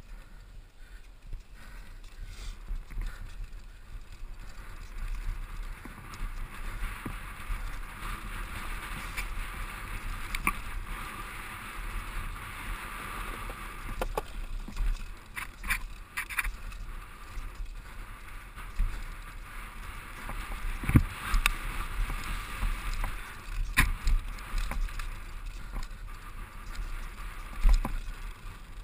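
Mountain bike rolling fast downhill over dirt and wooden ladder bridges: steady tyre and drivetrain noise with the bike rattling, broken by scattered sharp knocks from bumps and drops.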